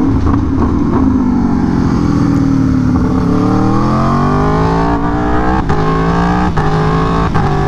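2017 Aprilia Tuono V4 1100 Factory's V4 engine through an SC Project CR-T exhaust, dropping in pitch as the bike slows, then rising under acceleration about three seconds in. Three quick upshifts follow in the second half, each a brief break in the engine note.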